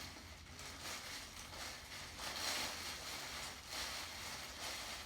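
Soft, irregular rustling and swishing of hair being handled as hair dye is worked into it.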